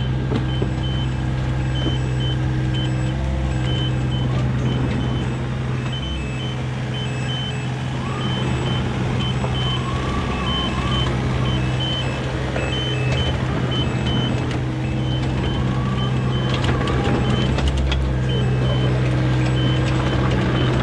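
IHI 30VX mini excavator's diesel engine running under load with its travel alarm sounding a steady series of short high beeps, and a few sharp knocks about two-thirds of the way through.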